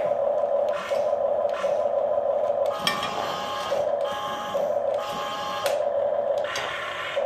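Huina 1550 RC toy excavator whirring in repeated short runs that start and stop as its functions are worked from the remote, with some plastic scraping and rubbing.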